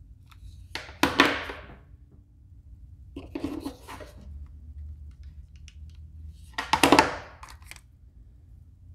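Handling noise from small metal lure weights and a hot glue gun: three short bursts of clicking and clattering, the loudest about a second in and near seven seconds.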